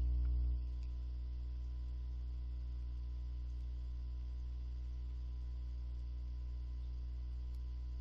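Steady electrical mains hum with a faint hiss, picked up by the recording microphone; it drops a little in level about half a second in.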